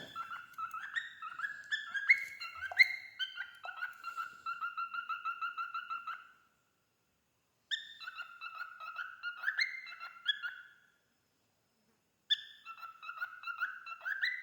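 Male cockatiel whistling its song in three phrases of warbling notes with short silent pauses between them, the first phrase ending in a quick run of repeated notes.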